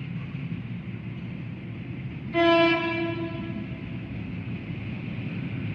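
Sydney Trains Waratah (A set) electric train approaching through the tunnel with a steady low rumble. About two seconds in it sounds its horn once: a single note, loud at first and fading within about a second.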